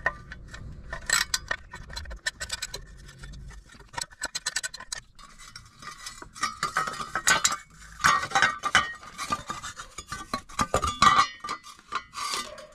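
Metal hand tools clinking and a socket wrench clicking in quick runs, busiest in the second half, as 10 mm bolts on an exhaust heat shield are undone under the car.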